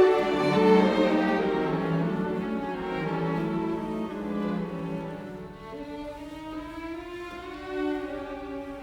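Background music: slow string music with violin and cello, its sustained notes gradually fading down.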